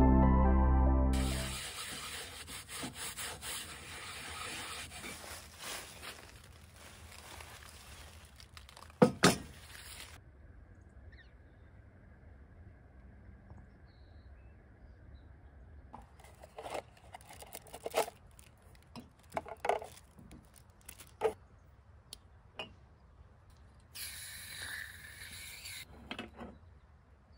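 Soft ambient music cuts off about a second and a half in. After it comes faint outdoor ambience with scattered small clicks and knocks, and a short stretch of hiss near the end.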